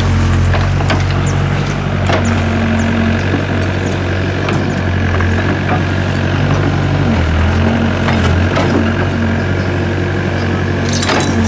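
Doosan DX55W wheeled excavator's diesel engine running steadily under working load. Scattered knocks and scrapes come from its bucket and blade working dirt and debris, with a louder scrape near the end.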